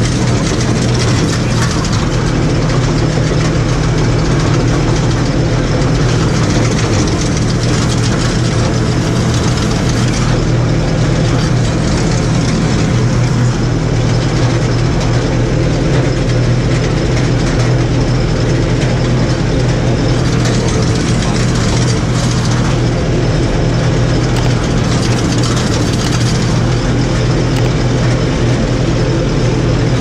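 New Holland T4.75 tractor's four-cylinder diesel engine running steadily under load, heard from inside the cab, as it tows a hay loader wagon along the windrows.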